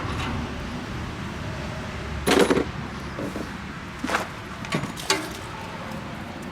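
Several sharp knocks of tools against metal parts, the loudest about two and a half seconds in, then three lighter ones, over a steady low rumble.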